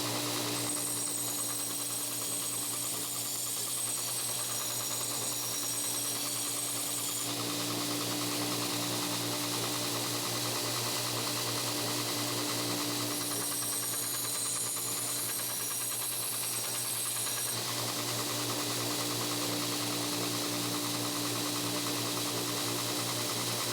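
Belt grinder running steadily while a steel cleaver blade is sharpened on it. A higher, hissing whine from the blade on the belt joins twice, for several seconds each time.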